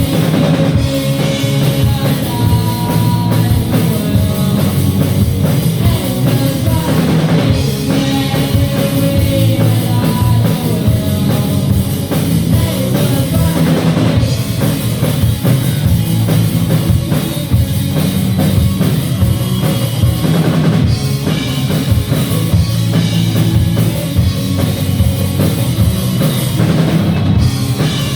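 Live rock band playing at full volume: drum kit with bass drum, with guitars and bass. It is a continuous loud mix with no pauses.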